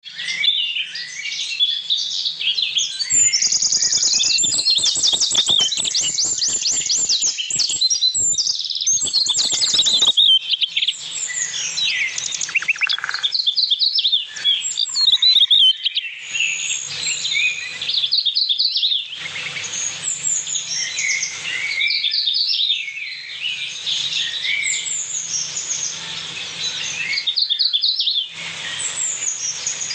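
Birds chirping and singing, several overlapping songs of short high chirps, with fast trills about three to ten seconds in.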